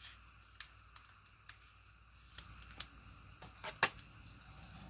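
Trading cards being handled and flipped through, giving scattered light clicks and snaps, about eight or nine in all, irregularly spaced.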